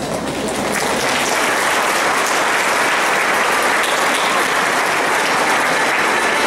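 Applause from many people clapping, building over about the first second and then holding steady.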